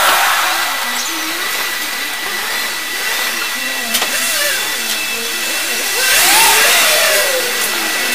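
Car driving slowly through an underground parking garage, heard through a cheap action camera: a loud steady hiss with a thin high whine, faint wavering squeals, and a swell of noise about six seconds in.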